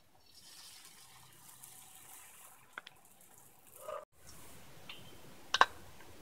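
Egg batter sizzling faintly on an oiled tawa as it is poured from a spoon, with a few light clicks of the spoon against a glass bowl, the sharpest one near the end.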